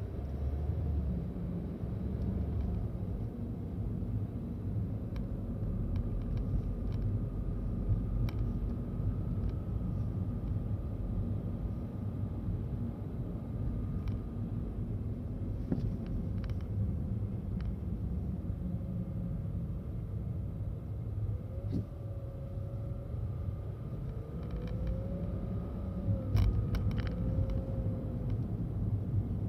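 Car air conditioner running with a steady low rumble, a faint wavering motor-like hum that bends up and down, and scattered light rattling clicks. These are abnormal noises: the owner suspects the hum comes from the expansion valve and the rattle from the blower fan.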